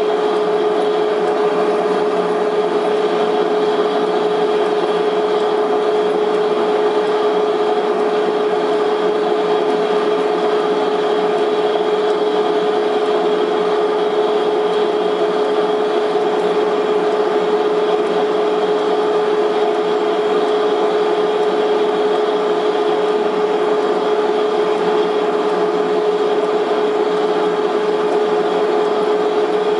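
Metal lathe running steadily with a constant hum while a form tool cuts the groove of a new pulley.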